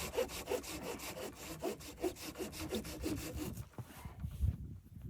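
Hand saw cutting through wood in steady back-and-forth strokes, stopping about three and a half seconds in, followed by a low thud or two.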